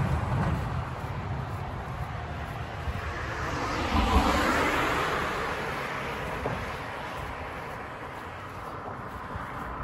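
A vehicle passing along the street: engine and tyre noise swells to a peak about four seconds in, then fades away.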